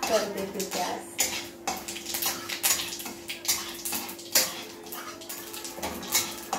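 Mustard seeds and curry leaves spluttering in hot oil in a kadhai: a continuous hiss with many irregular sharp pops and crackles. A metal spatula scrapes the pan as it is stirred, over a faint steady hum.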